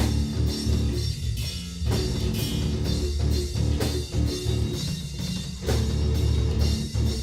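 Rock band playing live: drum kit, electric guitar and bass together, with a steady beat of drum hits.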